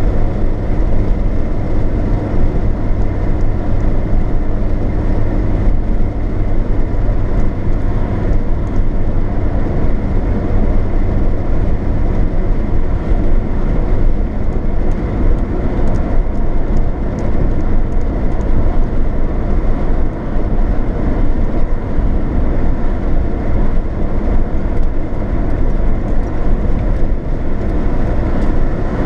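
A car driving at motorway speed, heard from inside the cabin: a steady mix of engine, tyre and wind noise, mostly low in pitch. A low hum in it eases off after about seven seconds.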